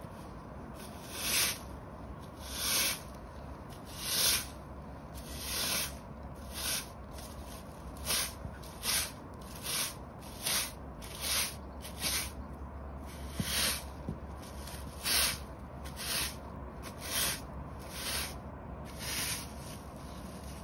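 Stiff hard-bristle push broom sweeping dirt and dry leaves across concrete paver bricks in a series of scratchy strokes. The first few strokes are longer and about a second and a half apart, then they turn shorter and quicker, about one a second.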